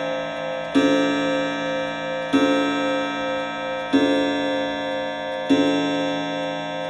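Chime clock striking the hour: single strikes, evenly spaced about every one and a half seconds, each a rich metallic ring that hangs on until the next. Four strikes, the first just under a second in.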